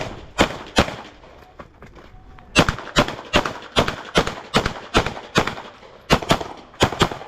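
Pistol shots fired in fast strings during a timed practical-shooting stage: two shots, a pause of about a second and a half, then a rapid run of shots at two to three a second, ending in quick pairs.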